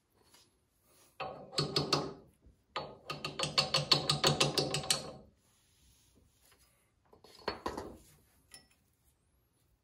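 Metal tractor front-hub parts rattling and clicking against the greasy spindle as they are slid and turned on it by hand. The clicks come in rapid runs, two stretches of a second or two each, with a shorter one near the end.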